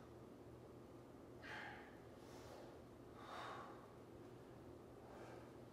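A man's faint breathing while he exercises on the floor doing single-leg hip bridges: about four soft breaths, with a faint low hum behind them.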